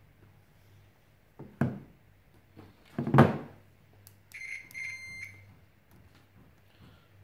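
Two knocks on the bench, the louder about three seconds in. About four seconds in, a UNI-T digital multimeter in diode mode beeps for about a second, broken into a few short beeps, as its test probes make contact.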